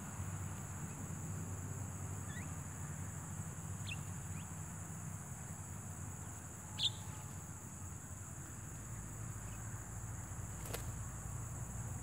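Steady high-pitched chirring of insects, with a few brief bird chirps, the loudest about seven seconds in, and a single sharp click near the end.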